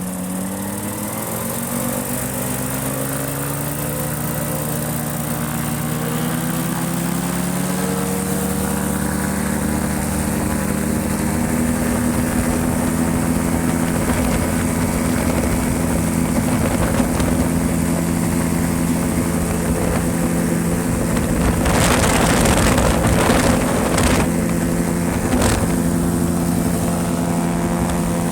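Ultralight airplane's engine and propeller running up to takeoff power, the pitch climbing over the first several seconds and then holding steady. Several short bursts of wind noise come near the end.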